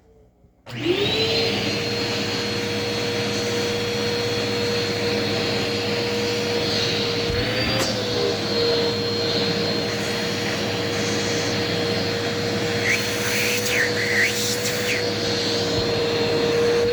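Eureka vacuum cleaner switched on about a second in. Its motor spins up to a steady whine and keeps running, with a brief wobble in pitch near the middle and a few short whistling chirps later.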